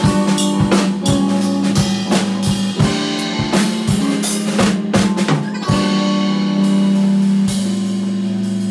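Live band of drum kit, electric keyboard and electric guitar playing. The drums keep a steady beat over held chords, then stop about six seconds in, leaving a long held chord ringing with only a couple more drum hits.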